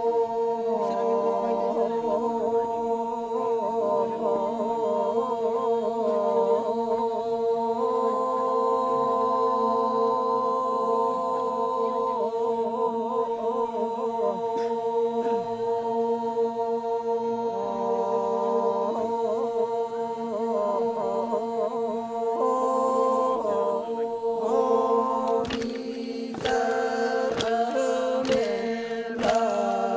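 Group of men chanting the Toraja Ma'nimbong ritual song unaccompanied, several voices holding long steady notes like a drone while a melody moves slowly above them. A few sharp knocks join in near the end.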